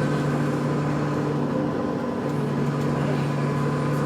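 A vehicle's steady droning hum made of several held tones, wavering briefly about two seconds in; this is the noise the owner calls weird.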